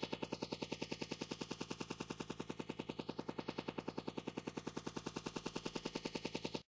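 Helicopter rotor chopping in a fast, even beat of about twelve pulses a second. The sound is rendered binaurally, so the helicopter moves around the listener's head.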